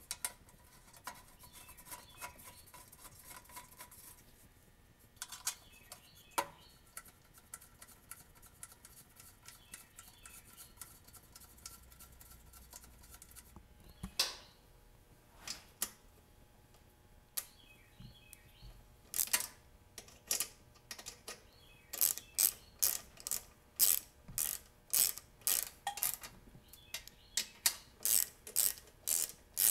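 Socket ratchet wrench clicking as it drives in the blower housing bolts. A few scattered clicks and knocks at first, then from about two-thirds of the way through a steady run of ratchet strokes, about two a second.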